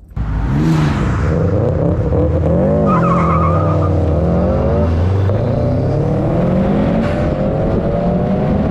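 Turbocharged Subaru EJ205 flat-four accelerating hard. Its pitch climbs and drops several times through gear changes, with a brief high squeal about three seconds in, and rises steadily again near the end.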